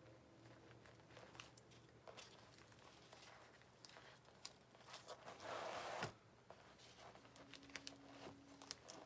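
Adhesive vinyl sheet being peeled off a sticky Cricut cutting mat: soft crinkling and small ticks, with a longer crackling peel about five seconds in that cuts off suddenly a second later.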